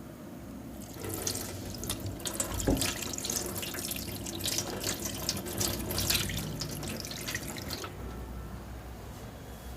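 Wet, squelching crackle of oil-soaked hands rubbing through hair and over the scalp in a heavy oil massage. It starts about a second in and stops sharply about seven seconds later, with one dull thump early on.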